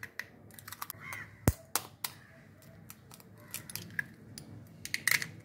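Steel spoon cracking and prying open an eggshell over a glass bowl: a scattering of small clicks and taps, the sharpest about one and a half seconds in.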